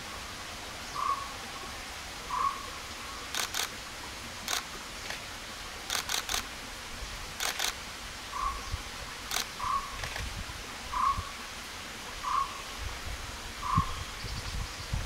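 Camera shutter firing in quick bursts of one to three clicks through the middle of the stretch, over a short call repeated about every second and a half by an unseen animal; the call stops while the shutter fires and resumes after it.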